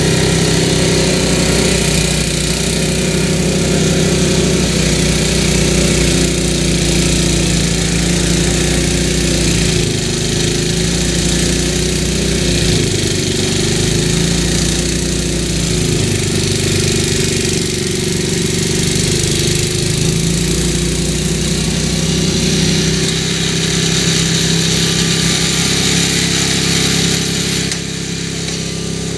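Tecumseh single-cylinder engine on an MTD snowblower running steadily at working speed. Several times its pitch sags briefly and recovers as it takes load from heavy wet snow.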